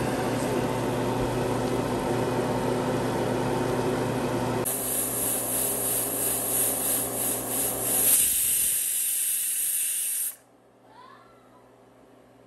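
Aluminium stovetop pressure cooker hissing loudly as steam escapes at its weight valve, at pressure on the burner; the hiss cuts off suddenly about ten seconds in. Before the hiss, a few seconds of steady cooking noise with a low hum.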